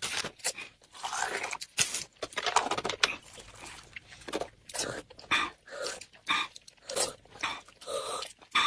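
Close-miked eating: crunching and chewing, a run of short, irregular bites and mouth sounds several times a second.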